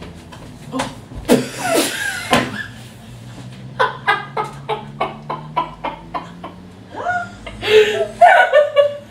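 Laughter: a run of short, evenly paced laughs about three or four a second, with louder giggling and voices near the end.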